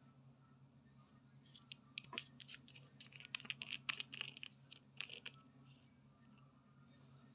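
Plastic screw cap being twisted off a hair oil bottle: a dense run of small clicks and crackles for about four seconds, then it stops.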